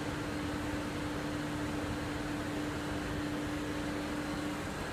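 DuPont Cyrel FAST 1000TD thermal flexo plate processor powered on, giving a steady fan-and-motor hum with an even rush of air; a steady low tone in the hum drops out near the end.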